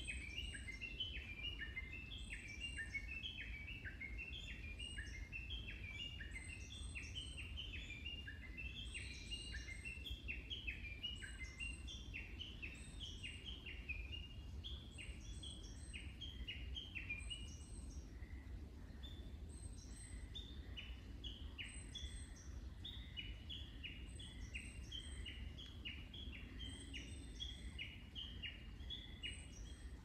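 Birds chirping in a rapid, continuous run of short, overlapping high notes, thinning briefly a little past the middle, over a low steady rumble.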